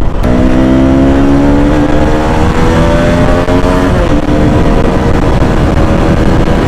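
KTM motorcycle engine accelerating under way, its pitch climbing for about four seconds, dropping sharply with an upshift, then climbing again, over a low rumble of wind on the microphone.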